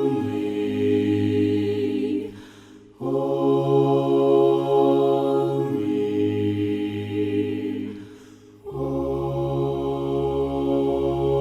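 Church group singing a cappella in several voice parts, with long sustained chords and a brief break twice between them.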